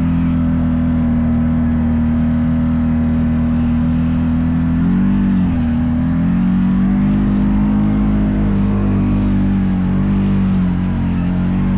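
Off-road vehicle engine running at a steady speed while riding, with a brief drop and rise in pitch about five seconds in as the throttle changes.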